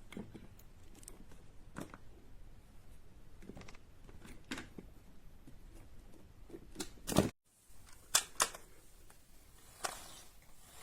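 Scattered light clicks and knocks of plastic magnetic building tiles being handled, the loudest a quick pair about seven seconds in.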